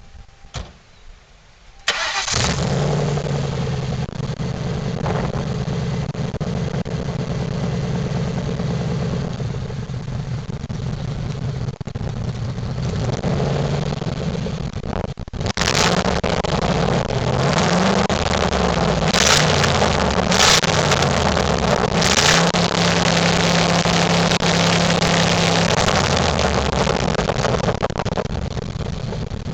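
1998 Ford Crown Victoria Police Interceptor's 4.6-litre V8, which has an exhaust leak, starts about two seconds in and runs at idle. It is then revved up and down several times, held at higher revs for a few seconds, and drops back to idle.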